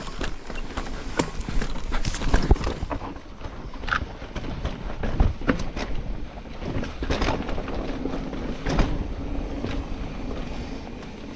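Mountain bike riding down a rough, dry dirt trail: tyres on dirt and rock, with the bike clattering and knocking over bumps and wind on the microphone.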